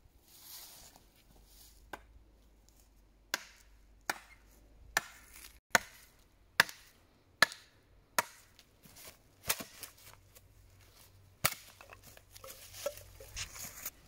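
Wooden branch being chopped with a hand-held blade: about ten sharp chops, most under a second apart, then a short pause before one last chop.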